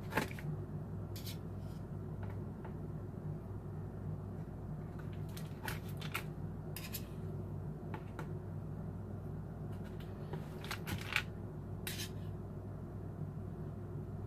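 Scattered small clicks, taps and scrapes of cream cheese being cut and packed into containers, over a steady low hum.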